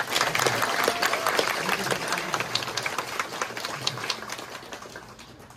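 Crowd applauding in a large hall, with scattered voices, the clapping dying away near the end.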